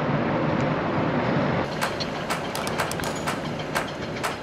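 A bicycle on the move: a steady rushing noise of riding that eases off a little under two seconds in, after which comes a string of sharp, irregular ticks and clicks.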